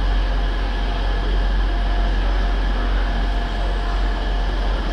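Diesel locomotive engine running steadily as the locomotive approaches slowly, heard as a steady low drone with a few faint steady tones above it.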